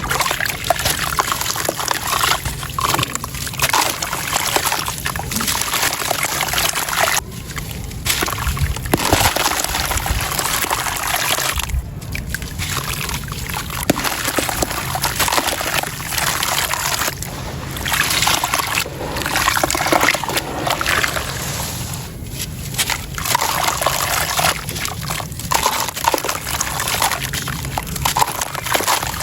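Gritty sand and stone clumps crumbling into a bowl of water, with crunching, sloshing and trickling that carries on with a few brief pauses.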